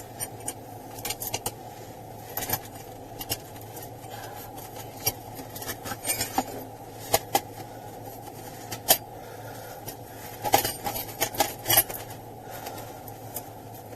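Irregular sharp clicks and small metallic clinks over a steady low hum, with a cluster of clicks near the end.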